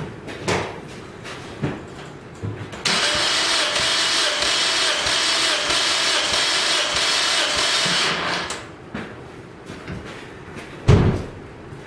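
Toyota Corolla four-cylinder engine cranked over by its starter for about five seconds without firing, with its spark plugs out and a compression gauge in one cylinder: a compression test. A single loud thump follows near the end.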